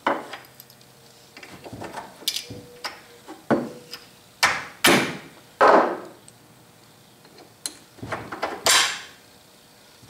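Irregular knocks, clunks and clatters as a cast-iron bench vise is bolted down on a wooden workbench: washers and nuts set down, a soft-faced mallet handled, the heavy vise shifted into place. There are about eight separate impacts, a few of them longer scraping clunks.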